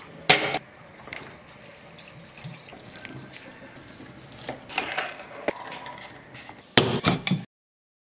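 Water splashing and trickling in a steel pot as raw rice is rinsed and water is poured in from a cup, with a few louder splashes. The sound cuts out abruptly near the end.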